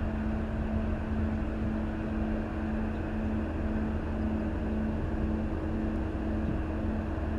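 Steady low industrial hum from an aluminum plant, a constant rumble with a few steady droning tones on top, one of them wavering slightly in level.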